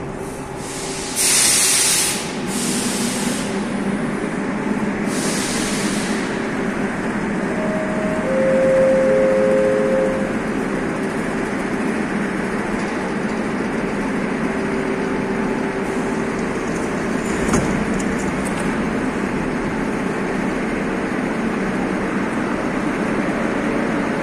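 Subway train standing at a station platform, running with a steady rumble and hum. Loud bursts of compressed-air hiss come from it about a second in and again about five seconds in, and a short falling run of three tones sounds around eight seconds in.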